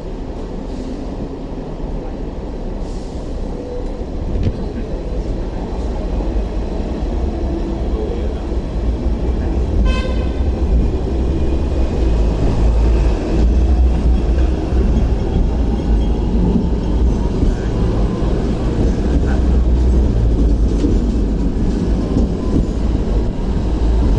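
Hong Kong double-deck electric tram pulling away and running on street track, heard from on board: a low rumble of wheels and motor that grows louder as it gathers speed, with a faint rising motor whine later on. One short toot about ten seconds in.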